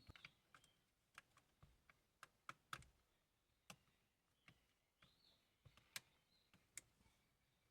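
Near silence broken by about a dozen faint, irregular clicks and taps: small plastic parts being handled as the LED bulb holder is fitted to the gear shifter indicator panel.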